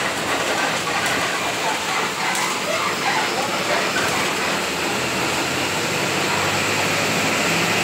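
Ride noise inside a moving Mascarello Gran Via city bus on a Volksbus 17-230 OD diesel chassis: a steady rush of road and tyre noise with cabin rattles. About five seconds in, a low engine hum comes up and the noise grows a little louder.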